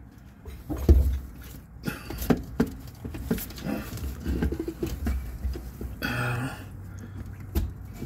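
A new plastic fuel pump module being fed by hand into a fuel tank opening: irregular knocks, clicks and scraping of plastic against the tank rim, with a low thump about a second in.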